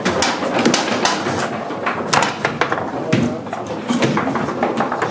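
Foosball table in play: repeated irregular sharp knocks and clacks of the ball, the plastic figures and the rods, over murmuring voices.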